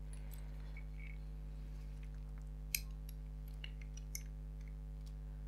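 Faint clicks and taps of the small plastic parts of a camcorder lens assembly being handled, with one sharper click just under three seconds in, over a steady low hum.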